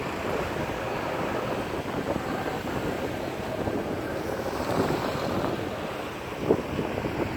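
Wind buffeting the microphone over a steady rushing background, with one short bump about six and a half seconds in.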